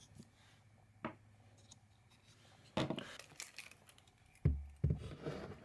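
Handling noises as parts are moved about on a bench: a single click about a second in, a short scrape or rustle around three seconds, then a few dull thumps near the end.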